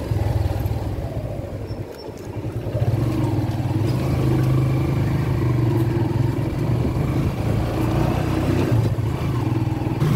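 Motorcycle engine of a tricycle (motorcycle with sidecar) running, heard from inside the sidecar; it eases off about two seconds in, then picks up again and runs steadily.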